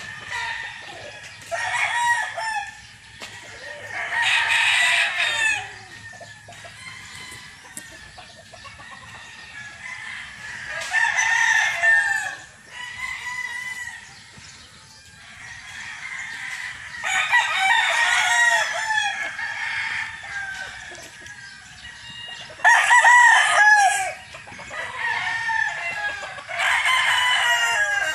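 Gamefowl roosters crowing, one crow after another every few seconds, each lasting a second or two.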